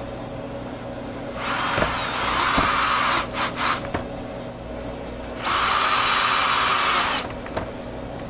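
Power drill driving quarter-inch hex-head screws that hold a refrigerator door gasket: two runs of a couple of seconds each, the motor's whine rising as it spins up and then holding steady, with a few short trigger blips between the runs.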